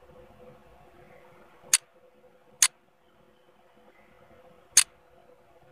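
Three sharp computer mouse clicks, the first two about a second apart and the third about two seconds later, over a faint steady hum.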